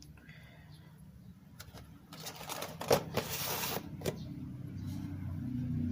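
Packaging being handled: a burst of rustling with a few sharp clicks, then a low rumble building toward the end.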